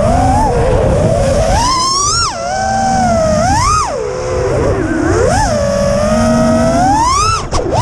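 FPV quadcopter's brushless motors (iFlight 2207 1900kv) whining, the pitch swooping up and down again and again as the throttle is punched and cut. Under the whine is a low rush of air.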